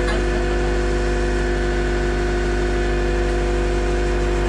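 Diesel engine of a tracked skid steer running steadily at constant speed, without revving.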